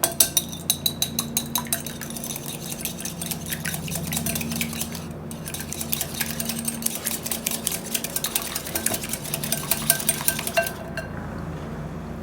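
An egg being beaten in a bowl: a utensil clicking rapidly against the bowl's side. It pauses briefly about five seconds in and stops shortly before the end.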